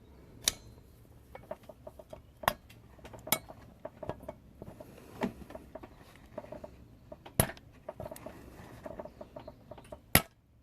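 Scattered light metallic clicks and clinks of a hand valve-spring tool pressing on a valve spring retainer and keepers, trying to seat the keepers on the valve stem; about five sharper clicks stand out, the loudest near the end.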